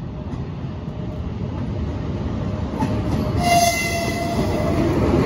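EP1M AC electric locomotive hauling a passenger train, approaching with a rumble that grows steadily louder. A brief horn toot sounds about three and a half seconds in.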